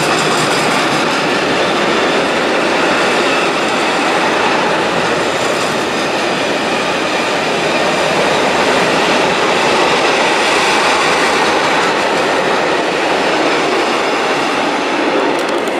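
Freight train of hooded wagons rolling past, a steady unbroken noise of steel wheels on the rails.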